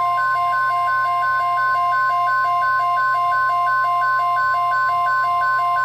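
Weather radio warning alarm tone: one loud, steady single-pitch tone. Under it, a repeating beeping alternates between a lower and a higher pitch, about three of each per second.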